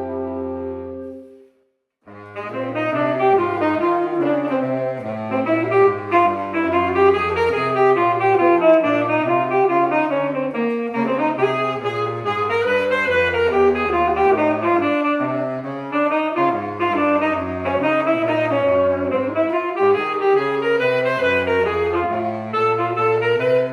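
Jazz quartet: a held chord ends about a second in, and after a brief break a saxophone plays fast, winding lines over a bass line that steps from note to note.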